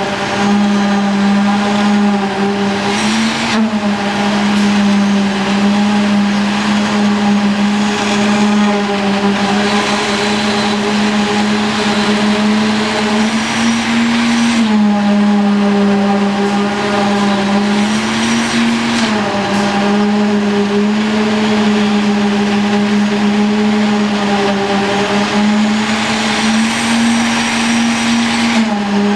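An engine running steadily under load, its pitch stepping up a little and back down several times, with noisy hiss rising and falling alongside.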